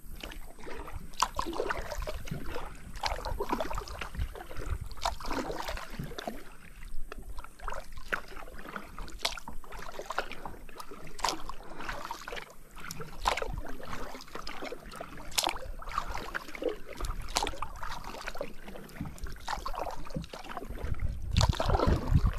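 Kayak paddle dipping and splashing in river water, a stroke every one to two seconds, with a low rumble rising near the end.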